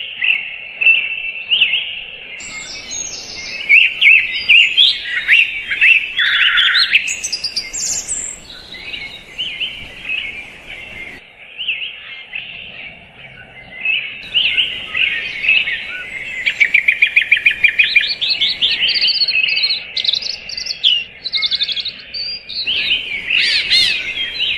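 Several songbirds singing and chirping together in a dense chorus of overlapping trills and whistles, including a fast, rapidly repeated trill about two thirds of the way through.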